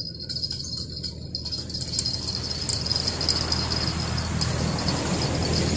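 Insects, crickets or similar, chirring in a steady high-pitched drone, over a low steady hum. A broad rushing noise swells up about a second and a half in and stays.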